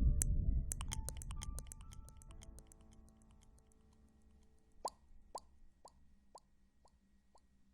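ASMR sound effects: soft chime-like tones and a fading low rumble under a flurry of small clicks, then from about five seconds in a run of echoing water-drop plops, about two a second, each fainter than the last.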